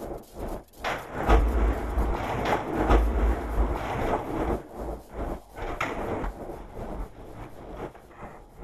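Sound-design track made almost entirely from water recordings: a dense, noisy wash full of irregular knocks and clatters, with a deep rumble. It is loudest in the first half and thins out toward the end.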